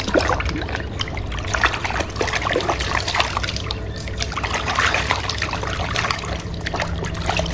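Water trickling and splashing in many small drips and dribbles as a muddy toy is rinsed in clean water.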